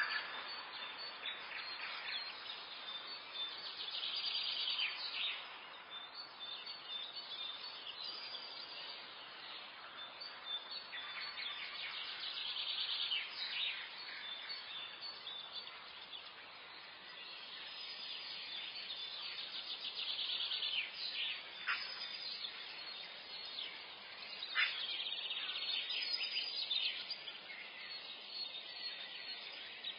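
Morning forest ambience: several songbirds chirping and trilling, with a steady background hiss. A few sharp, quick downward-sliding calls stand out about two-thirds of the way through.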